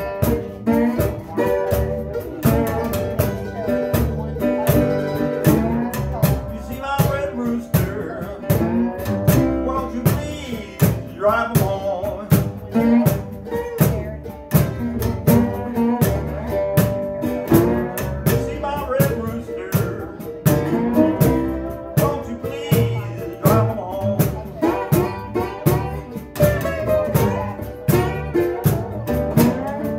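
Small acoustic band playing a blues number live: cajon keeping a steady beat under upright bass and guitars.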